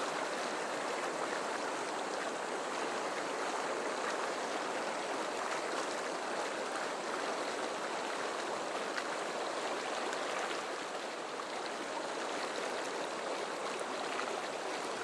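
Fast river current rushing steadily through rapids close by: an even, unbroken rush of water.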